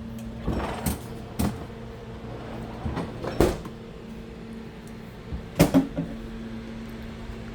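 RV kitchen doors being opened and shut, a series of knocks and clunks, the loudest about three and a half and five and a half seconds in, over the steady hum of the running air conditioner.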